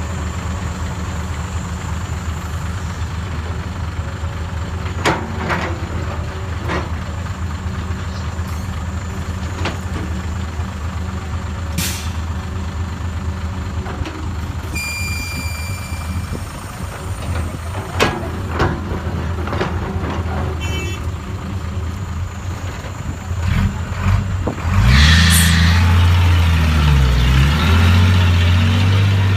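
Diesel dump-truck and excavator engines running steadily, with scattered clanks and a short beep midway. Near the end an air brake hisses and a loaded dump truck's engine gets louder, rising and falling in pitch as it pulls off.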